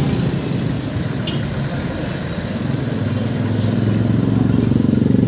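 Road and traffic noise heard while riding: a steady rumble with a thin high whine, getting louder in the last couple of seconds as a vehicle's engine draws close.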